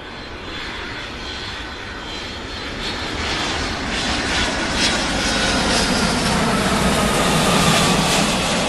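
Airplane engines on takeoff, a rushing roar that grows steadily louder over several seconds and peaks near the end. A thin whine slides slightly lower in pitch in the second half.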